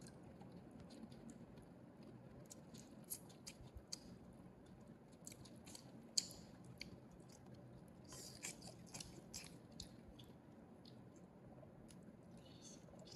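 Faint wet chewing and lip-smacking of a baby monkey eating a small piece of soft fruit: soft irregular clicks, with one sharper click about six seconds in.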